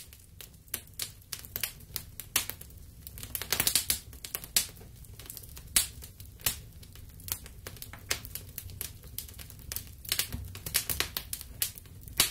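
Crackling fire sound effect: irregular pops and snaps over a low rumble of burning, with a quick flurry of pops a few seconds in.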